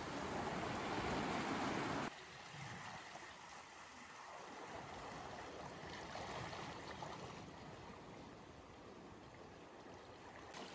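Small sea waves washing and breaking over shore rocks. It is louder for about the first two seconds, then drops suddenly to a quieter, steady wash of water.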